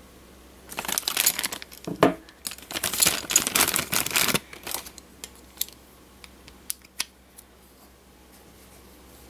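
A clear plastic bag crinkling as it is handled, with a knock about two seconds in. After that come a few separate light clicks of clear plastic display-stand parts being handled and set down.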